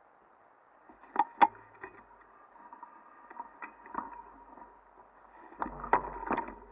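Irregular knocks and rattles from a mountain bike and its mounted camera jolting over a rocky dirt trail, loudest about a second in and again near the end, with some low rumbling on the microphone near the end.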